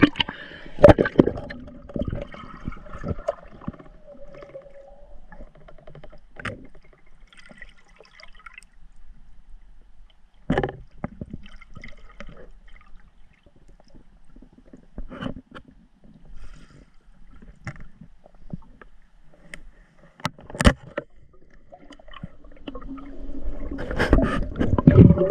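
Muffled gurgling and bubbling of water around a camera mounted on a diver's goggles, as heard with the camera under water. Scattered sharp knocks run through it, and the gurgling grows louder near the end.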